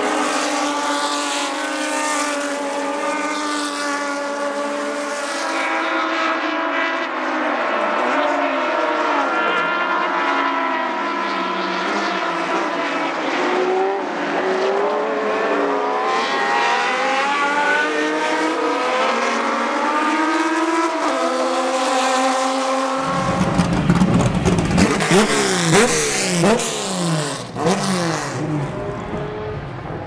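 Several racing six-cylinder inline engines at full throttle, their pitch rising and falling as the cars accelerate, brake and pass one another. About 23 seconds in the sound turns deeper and heavier, with quick pitch sweeps as cars pass close by.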